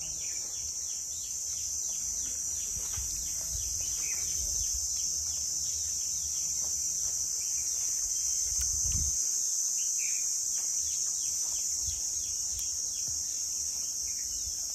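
Steady high-pitched drone of insects in a mango orchard, with a bird's short falling chirps repeating over it.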